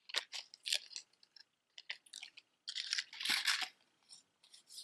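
Gold-tone hoop earrings being handled: small metallic clicks and light rustling, with a longer spell of rustling about three seconds in.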